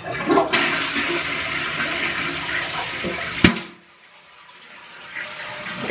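Toilet flushing: a loud rush of water for about three seconds, cut by a sharp click, followed by a much quieter hiss of water that slowly builds.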